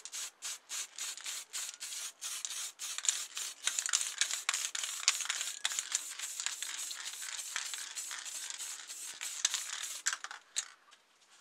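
Aerosol spray paint can hissing as yellow acrylic paint is sprayed onto a model car body. It starts in quick short bursts, about three or four a second, then sprays almost continuously and stops shortly before the end.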